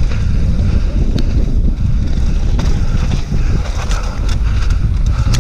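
Wind rushing over the microphone and the low rumble of knobby mountain-bike tyres on a rough dirt trail during a fast descent. A few sharp clicks and knocks from the bike come through.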